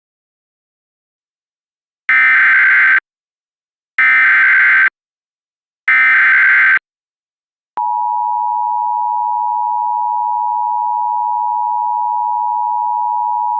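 Emergency Alert System tones: three screechy bursts of SAME digital header data, each under a second long and about a second apart, then, about eight seconds in, the steady two-tone EAS attention signal starts and holds. This sequence marks the start of an alert message.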